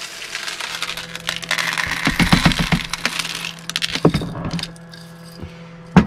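Coffee beans poured from a glass jar into the bean hopper of a De'Longhi bean-to-cup coffee machine: a dense rattle of many small clicks, heaviest about two to three and a half seconds in, then thinning. There is a knock about four seconds in and a sharp knock at the very end.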